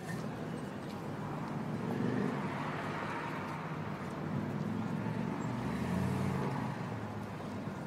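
A BMW X3 SUV's engine running at low speed as it drives over paving, with outdoor street noise around it.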